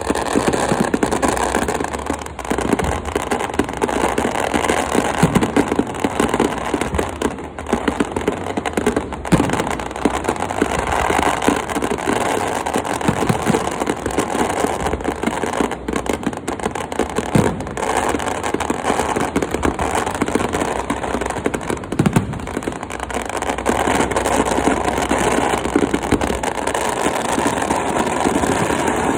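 Fireworks going off in a continuous barrage, a dense stream of crackling pops with occasional sharper bangs.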